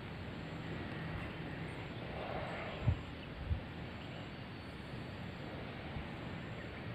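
Steady wind noise rushing over a phone microphone in the open, with two short low thumps about three seconds in.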